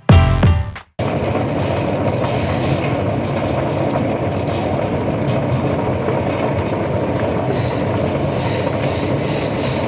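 Shallot washing and peeling machine running, with a steady, dense rattle of the bulbs tumbling inside. It starts abruptly about a second in, as a snatch of music cuts off.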